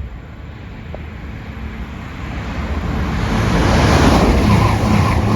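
East Midlands Railway Class 222 Meridian diesel multiple unit speeding through the station without stopping. Its rushing wheel and air noise, over a low engine hum, builds from about two seconds in and is loudest near the end.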